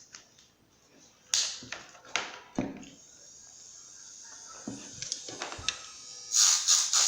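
A few clicks and knocks of handling, then, about six seconds in, loud rapid scratchy strokes of a coarse Scotch-Brite abrasive pad rubbing over the trimmed edge of a thermoformed acetate dental plate, about four strokes a second, taking off the burrs.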